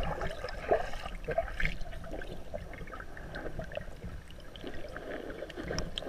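Water sloshing and gurgling, muffled as heard by a camera held underwater, with a few splashes in the first couple of seconds from a dog paddling alongside.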